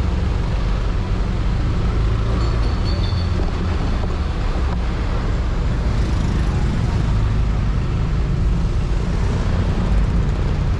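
Yamaha Aerox scooter's single-cylinder engine running steadily under way, mixed with road noise and surrounding street traffic. A short high tone sounds about two and a half seconds in.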